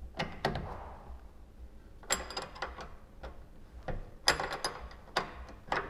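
Scattered metallic clicks and clinks of tools and suspension hardware being handled while the anti-roll bar links are fitted, with two denser flurries of clinks about two and four seconds in.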